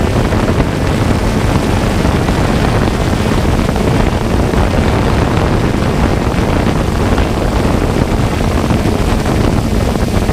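Multirotor drone's propellers running with a steady whir, a faint whine in it fading over the first half.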